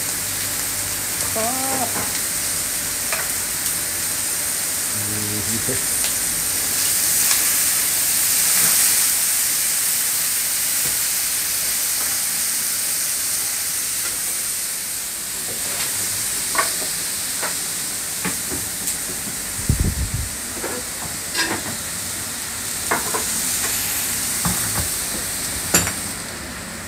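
Beef steaks sizzling and frying on hot iron sizzle plates over gas burners, with butter melting on top: a steady frying hiss that grows louder about seven to nine seconds in. In the second half, sharp clinks and knocks of metal plates and utensils cut through the sizzle.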